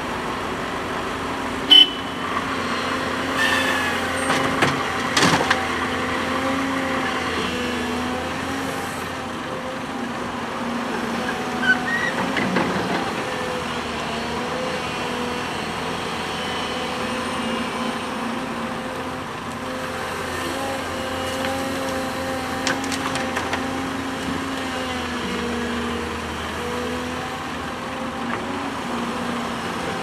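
Diesel engine of a Volvo crawler excavator running steadily as it digs and loads sand into a dump truck, with a few sharp clanks, the loudest about two seconds in.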